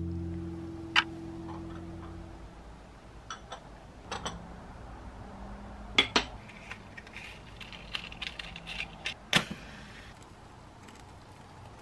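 The last chord of the background music rings out and fades within the first couple of seconds, then scattered light clicks and clinks of small objects being handled, the sharpest one near the end.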